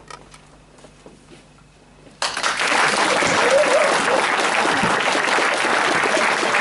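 Audience applauding at the end of a talk, breaking out suddenly about two seconds in after a quiet moment and going on steadily.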